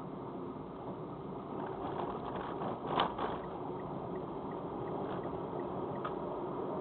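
Steady road and tyre noise heard inside a moving car, with a run of clunks about two to three seconds in, the loudest about three seconds in, as the tyres cross railroad tracks.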